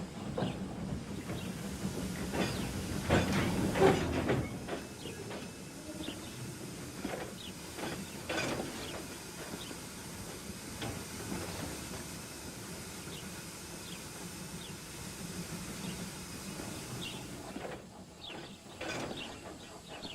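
Steam locomotive sound effect: a steady hiss of steam with wheels clicking and clattering over rail joints, loudest about three to four seconds in. There is a brief drop near the end before the clatter picks up again.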